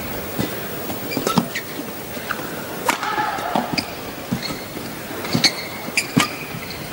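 Badminton rally: sharp cracks of rackets striking the shuttlecock about once a second, with court shoes squeaking on the mat and a low crowd murmur under it.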